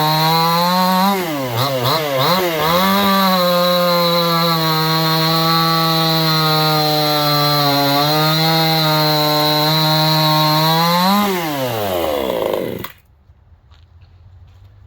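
Supmix two-stroke chainsaw, fitted with an 8-pin rim sprocket and .325 chain, running at full throttle in a cut. Its pitch wavers about a second in as the chain bites, then holds steady under load; to the owner the 8-pin felt like it was cutting slower. Near the end the pitch rises briefly, falls away, and the sound cuts off suddenly.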